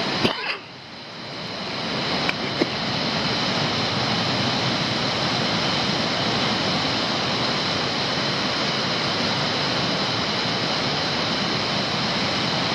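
Steady rushing of water from mountain waterfalls and a stream running across the road, swelling up over the first few seconds and then holding steady. A few light clicks sound in the first three seconds.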